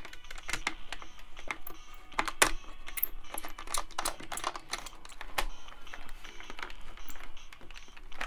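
Small precision screwdriver working tight screws out of a plastic action figure, with irregular clicks and taps of the metal tool against hard plastic and of the plastic parts being handled.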